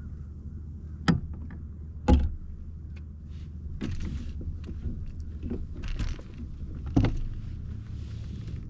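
Gear knocking and rattling aboard a fishing kayak: three sharp knocks, two a second apart and a third near the end, with scraping and rattling in between over a steady low rumble.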